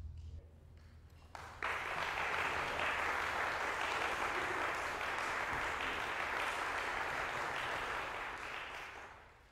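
Concert-hall audience applauding, beginning suddenly about a second and a half in, holding steady, then dying away just before the end. At the very start the last of the concert band's final chord fades out in the hall's reverberation.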